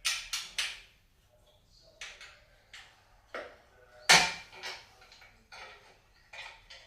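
Scattered clicks and knocks of tools and bolts as the bash plate of an electric dirt bike is unbolted and handled. The loudest knock comes about four seconds in.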